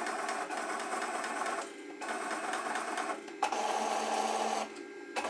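ODrive-controlled brushless servo motor jogging a CNC-converted mini mill's X-axis table through its belt drive: a steady mechanical whir in a run of short moves, breaking off briefly three times.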